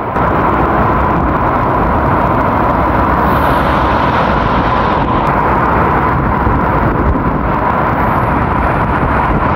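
Water from an overflowing village tank pouring over a stepped stone spillway and rushing down over boulders: a loud, steady rush of falling water.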